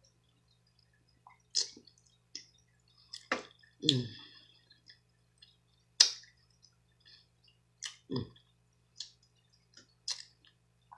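Close-up eating sounds: wet clicks and smacks of a mouth and sauce-covered fingers while picking at and eating boiled blue crab. The sounds come scattered, with louder ones about one and a half, three and a half, four, six and eight seconds in.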